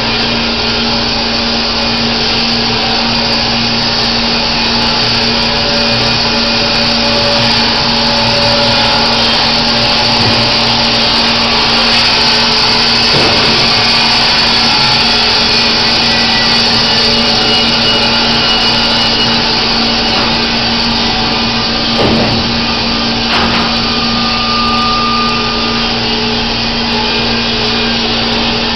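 Baker Products Super Streak band sawmill running steadily in white oak, a loud even whirring noise over a constant low hum. A couple of brief knocks come about three quarters of the way through.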